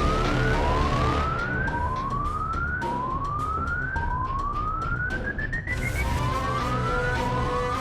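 Police siren sounding in quick repeated rising sweeps, each climbing in pitch for about a second and then dropping back to start again, with one longer, higher sweep partway through, over a steady low rumble.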